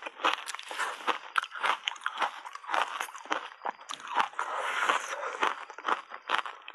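Ice coated in matcha powder being chewed, a fast irregular run of sharp crunches several times a second, with a longer stretch of grinding crunches about two-thirds of the way through.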